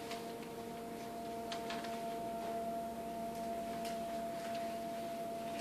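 A steady pitched hum held on one note, with a few soft clicks.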